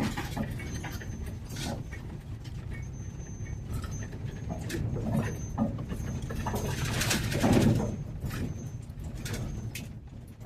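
Van driving slowly over rough ground: a steady low rumble with scattered rattles and creaks, and a louder rattle about seven seconds in.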